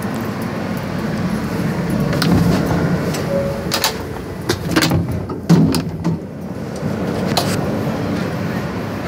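Inside an R160 subway car: the steady rumble of the train on the tracks, broken by several sharp clacks and rattles, the loudest about halfway through.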